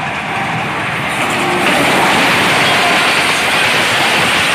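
Express passenger train behind an HBU-20 diesel locomotive passing close at speed. The noise builds as the locomotive reaches the microphone about a second and a half in, then holds as a steady loud rush of the coaches going by.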